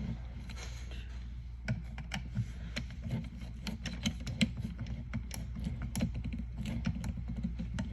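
Small, irregular clicks and taps, a few each second, from a hand screwdriver tightening the screw that clamps the cable, over a steady low hum.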